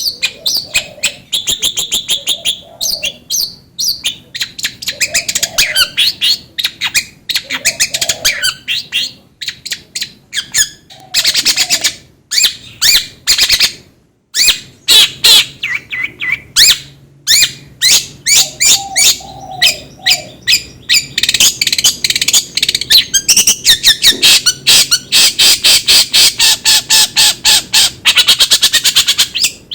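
Long-tailed shrike (cendet) singing a long, nearly unbroken run of rapid, harsh chattering and squawking notes, with a brief pause about 14 seconds in.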